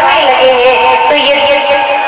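Female voice singing a devotional line into a microphone, with held, gliding notes over musical accompaniment.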